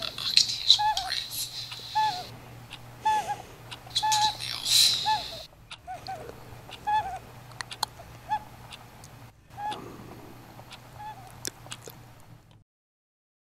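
A bird calling over and over with short, arching chirps, about one or two a second, as it is offered a mealworm. Small clicks and a rustling hiss come with the calls in the first half. The sound cuts off near the end.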